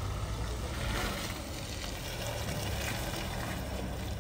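Off-road vehicle's engine running steadily at low revs, with a rough, noisy rumble.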